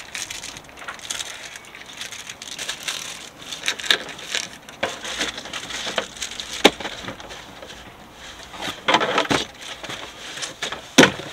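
Plastic packaging crinkling and rustling as parts are unpacked from a cardboard box, with sharp plastic clicks and knocks from handling a plastic fuel tank and its screw cap; the loudest clicks come about two-thirds of the way through and again near the end.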